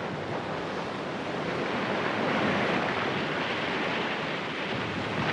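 Sea water rushing and splashing against a boat's hull, a steady noisy wash that grows louder towards the middle and eases slightly near the end.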